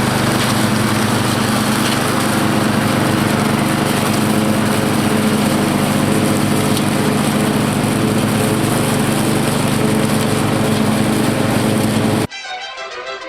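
A 12-horsepower Craftsman lawn tractor engine running steadily at a constant speed. Near the end it cuts off abruptly and music begins.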